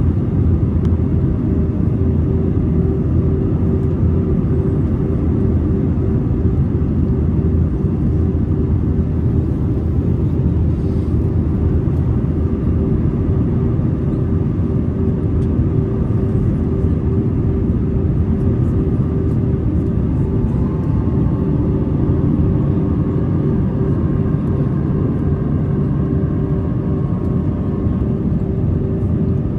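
Airbus A320 cabin noise in flight: a steady low rumble of engines and airflow with a constant hum, and a couple of faint higher tones joining about two-thirds of the way in.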